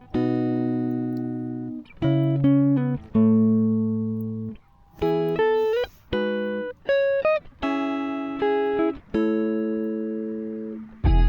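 Background music: a solo guitar playing slow, separately plucked notes and chords that ring and fade, a few of them with short sliding bends.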